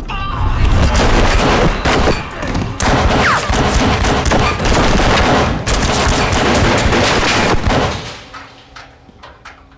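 Rapid handgun fire, many shots in quick succession, for about eight seconds. It then stops, with a few fainter cracks near the end.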